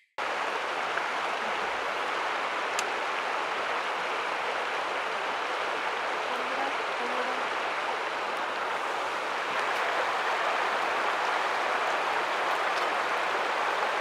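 Steady rushing of flowing water from a stream or river, an even hiss at constant level, with a couple of faint ticks.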